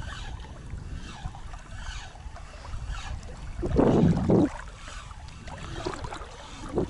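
Low rumbling wind and water noise on the microphone, with a louder burst of noise about four seconds in.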